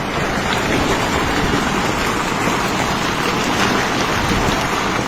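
Heavy storm precipitation pelting down on surfaces: a loud, dense, steady hiss with fine patter throughout, swelling in over the first second.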